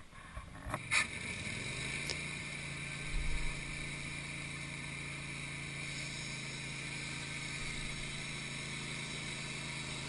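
Wood-Mizer LT15 sawmill's engine idling steadily between cuts, with a sharp knock about a second in.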